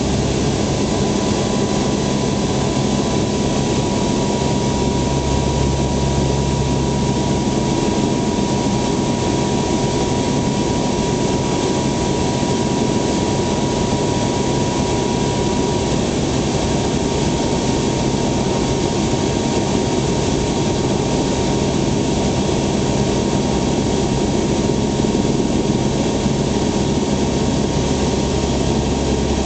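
Steady drone of a C-130's four turboprop engines and propellers heard from inside the aircraft in flight. A thin, steady high hum runs through it and grows fainter about halfway through.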